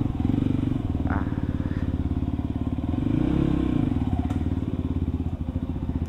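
Yamaha WR155R single-cylinder engine idling and putting along at walking pace, with a brief rise and fall in revs about halfway through. It cuts off suddenly at the very end.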